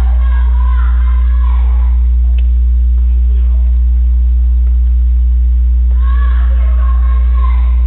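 Loud, steady low electrical hum. Two stretches of a high, wavering pitched sound ride over it, one at the start and one about six seconds in.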